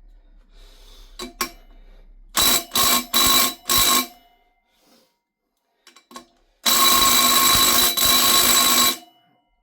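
Impact wrench hammering on a rear-wheel sprocket bolt: four short bursts, then one long burst of about two seconds, with the bolt not coming loose.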